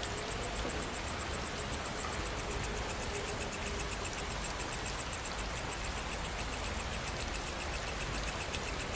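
Steady rain falling, with insects chirping high in a rapid, even pulse throughout and a second, lower insect trill joining about halfway through.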